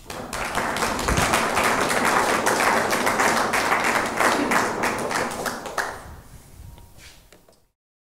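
Audience applause from many people at the close of a lecture, a dense patter of quick sharp strokes, steady for about five seconds and then dying away.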